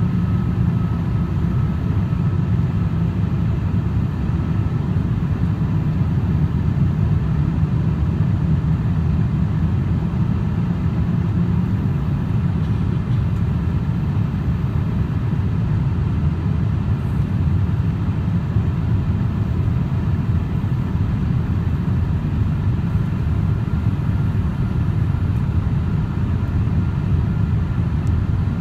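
Steady cabin noise inside a Boeing 787-8 Dreamliner climbing out after takeoff: a deep, even rumble of engine and airflow with a faint steady whine above it.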